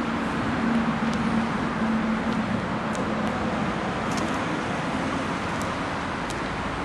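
Street traffic noise: a steady wash from passing cars, with a vehicle's hum fading away over the first few seconds. The sound cuts off abruptly near the end.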